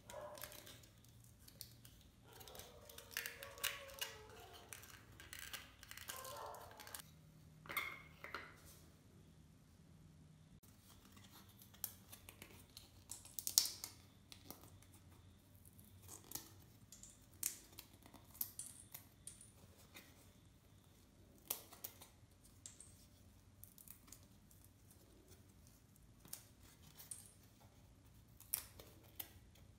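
Foam-board puzzle pieces handled and slotted together by hand: faint scattered clicks, scrapes and rubbing of the foam card, busier in the first several seconds.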